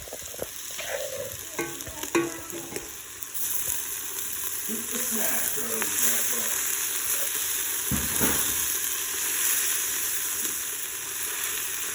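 Vegetables, garlic and ginger sizzling in olive oil in a soup pot, a steady frying hiss that grows louder about three seconds in. The pot is close to sticking and starting to burn.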